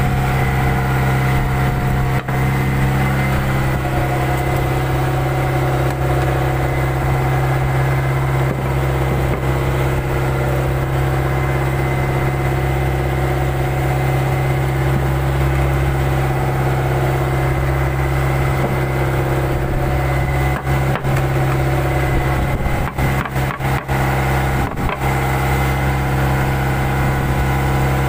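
Fishing boat's engine running steadily with an even drone, its level dipping briefly a few times about twenty seconds in.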